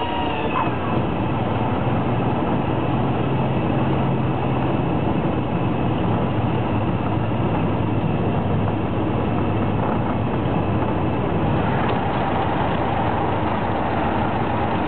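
Cessna 172's four-cylinder Lycoming engine and propeller droning steadily, heard inside the cabin together with the rush of air past the airframe. The engine note drops slightly about halfway through.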